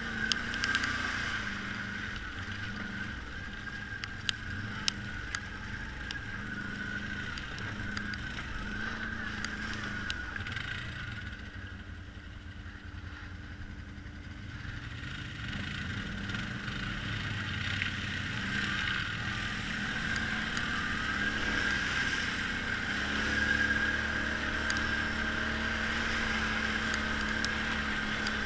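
ATV engine running under way on a dirt trail, a steady hum with a whine above it. It eases off for a few seconds around the middle and then picks back up, with a few sharp knocks in the first several seconds.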